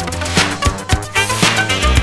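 Funk dance music with a steady drum beat and a heavy bass line.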